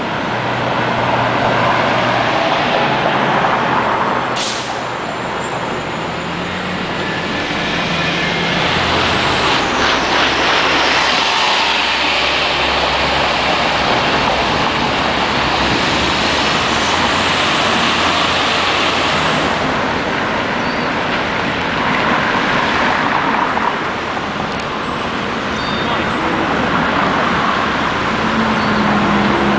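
Diesel city buses and street traffic: Gillig Phantom transit bus engines running and pulling away, with tyre and traffic noise swelling and fading as vehicles pass.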